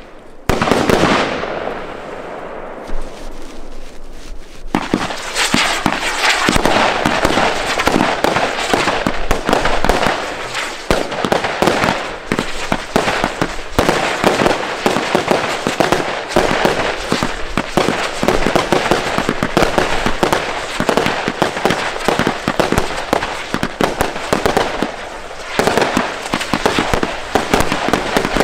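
Consumer New Year's fireworks: a loud bang at the start fading into crackle, then from about five seconds in a dense, continuous barrage of bangs and crackling from a firework battery and aerial bursts, with a brief lull near the end.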